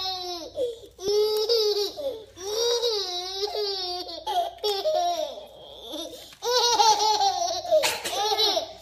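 A baby laughing hard in long, high-pitched bouts with short breaks between them; the loudest bout comes near the end.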